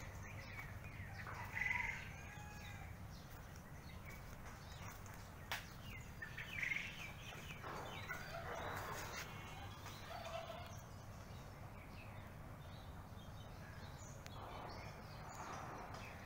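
Domestic fowl calling now and then in short bursts over a steady low rumble, with one sharp click about five and a half seconds in.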